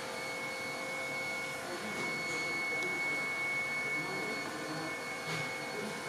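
Steady machine hum with a constant thin, high-pitched whine over it.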